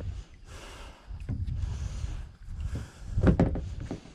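Wind rumbling on an outdoor microphone, with a few short bursts of hiss and a brief low voice-like sound about three seconds in.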